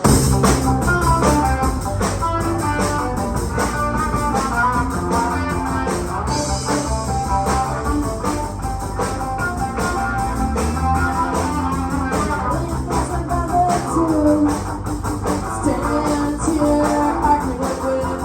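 Live rock band playing a song, electric guitar to the fore over bass and drums, at a steady loud level. It is played as a sound check so the levels can be set.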